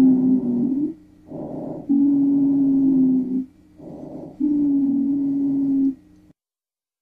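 Lung sounds recorded through a stethoscope: breath after breath, each a short softer rush followed by a longer, louder phase carrying a steady low musical tone. The pattern is typical of a low-pitched wheeze (rhonchus). It stops about six seconds in.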